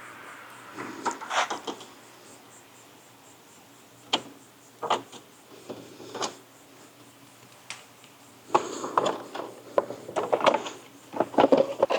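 Plastic push clips being popped out and a plastic engine-bay panel worked loose by hand: scattered clicks and knocks, then a longer run of rattling and rubbing plastic near the end.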